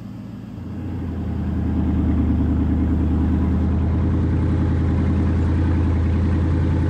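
A vehicle engine running, growing louder over the first two seconds and then holding steady.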